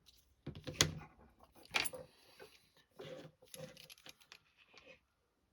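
Hard plastic parts and tools handled on a workbench: clicks and knocks, with two louder knocks about a second apart near the start, then lighter clattering.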